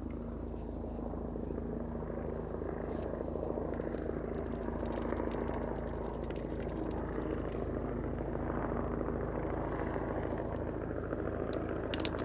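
Life Flight medical helicopter's rotor and turbine running with an even low beat, slowly growing louder.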